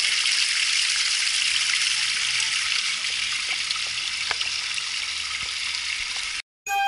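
Steady trickle of a small stream running over stones, an even hiss with a few faint ticks. It cuts off abruptly near the end.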